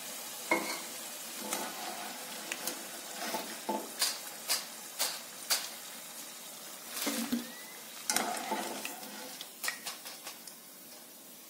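Rice-flour kurkure sticks sizzling in hot oil in a wok, with a wire-mesh spider skimmer scraping and clinking against the pan as the golden-brown snacks are lifted out. Sharp clinks come every second or so over the steady sizzle.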